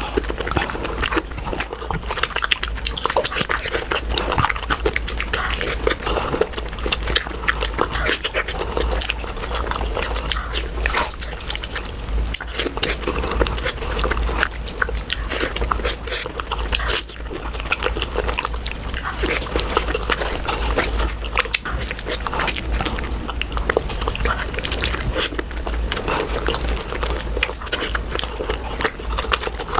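Close-miked eating of puri with mutton curry: continuous wet chewing, lip smacking and slurping, with many quick clicks of the mouth.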